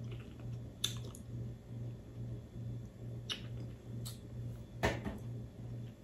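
Crab legs being picked apart and eaten by hand: about half a dozen short, sharp shell clicks with quiet chewing, over a low steady hum.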